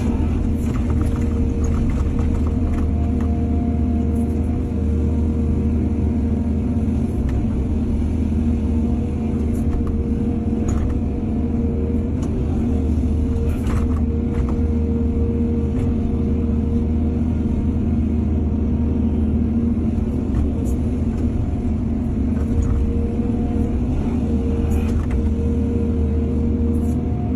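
Heavy diesel machinery at work: an excavator's engine running steadily under load, with a few short knocks and clanks scattered through.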